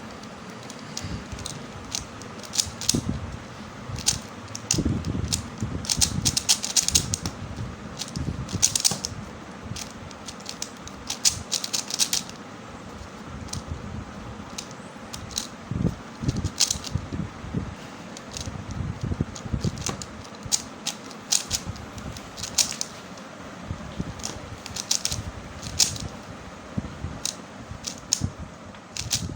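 Rubik's cube being turned quickly by hand: its plastic layers click and clack in fast irregular flurries, with short pauses between runs of turns.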